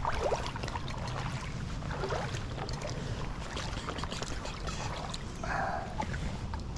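Someone wading through a creek: water sloshing and splashing around the legs, with a few louder swishes.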